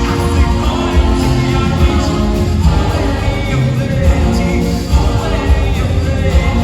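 Music with singing voices over a strong, pulsing low end.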